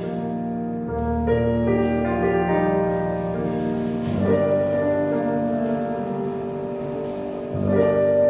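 Instrumental music led by piano: held chords that change every second or few.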